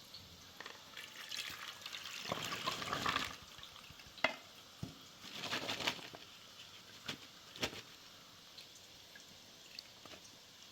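Water being handled while cooking: two bursts of splashing and pouring, with a few sharp clinks in between.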